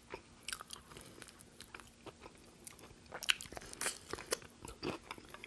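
A person biting into and chewing a KFC crispy hot wing: scattered sharp crunches of the fried breading, louder between about three and five seconds in.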